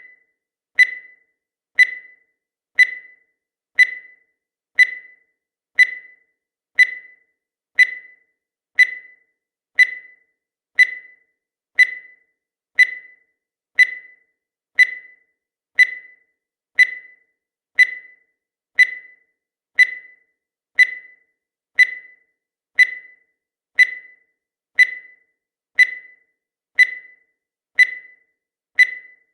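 Countdown timer sound effect: a short, high electronic beep once every second, each one dying away quickly, in a steady even rhythm.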